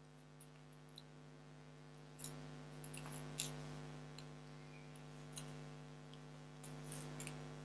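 Faint handling sounds of florist tape being wrapped around wire stems: scattered light clicks and crackles, a little busier from about two seconds in, over a steady low hum.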